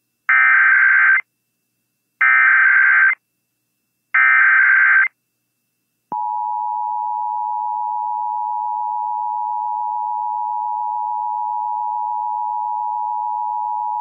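Emergency Alert System required monthly test: three short bursts of SAME header data, about a second each and a second apart, followed about six seconds in by the steady two-tone EAS attention signal.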